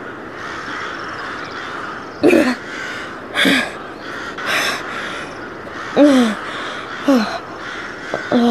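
Crows cawing: six harsh calls, roughly a second apart, starting about two seconds in, over a steady background hiss of outdoor ambience.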